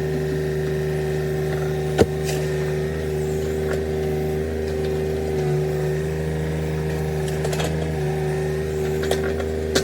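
Tata Hitachi Zaxis 33U mini excavator's diesel engine running steadily while it works, with a steady tone over the drone. One sharp knock about two seconds in, and a few lighter clicks near the end.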